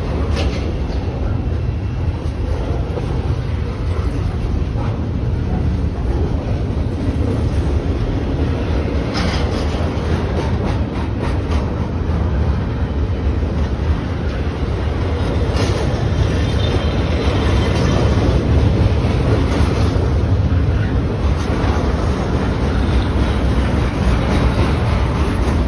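Double-stack intermodal container cars of a freight train rolling past, wheels on rail making a steady heavy rumble. A few sharp clacks stand out near the start, about nine seconds in and about sixteen seconds in.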